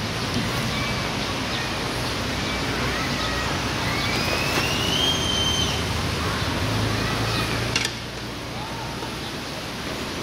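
Steady outdoor background noise with faint bird calls, among them a longer rising call about four seconds in, and one sharp click just before eight seconds.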